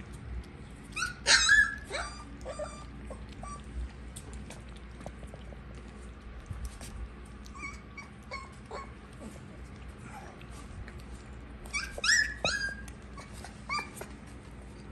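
Husky puppies whining in short high-pitched squeals, with little smacking and lapping clicks from eating at a shared bowl. The squeals come in two louder bunches, about a second in and again near the end, with fainter ones in between.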